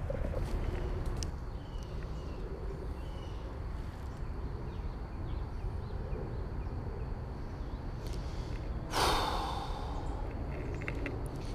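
A person exhaling heavily once, a breathy sigh about nine seconds in, over a steady low rumble.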